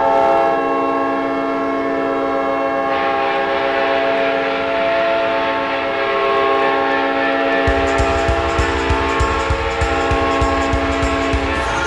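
Ice hockey arena goal horn sounding one long multi-tone blast, held for nearly twelve seconds, over a cheering crowd whose noise swells about three seconds in. About eight seconds in, the pounding beat of the goal song starts underneath. The horn cuts off just before the end.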